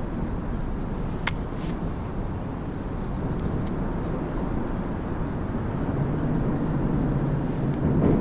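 Steady low rush of flowing creek water, with a single sharp click about a second in.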